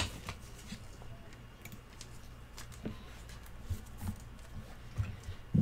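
Faint scattered clicks and soft taps over a steady low hum, with a few louder short knocks in the last couple of seconds.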